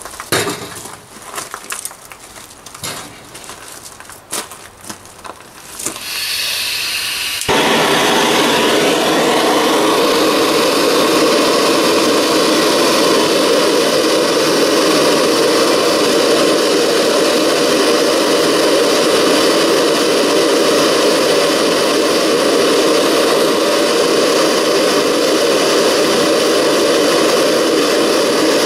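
A few light clinks and knocks, then propane hissing from a Sievert gas torch with a standard burner; about seven and a half seconds in it catches with a sudden jump to a loud, steady burning that runs on as the torch fires into the forge's side port.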